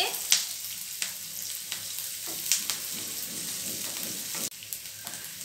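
Chopped onions sizzling in hot oil in a frying pan as a wooden spatula stirs them, with scattered scrapes and taps of the spatula on the pan. The sizzle drops suddenly in level about four and a half seconds in.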